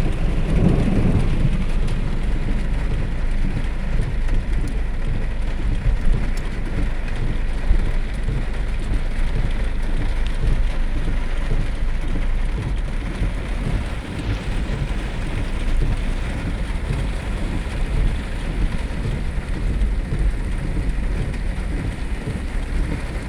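Heavy rain pouring steadily onto hard surfaces, with a constant low rumble underneath.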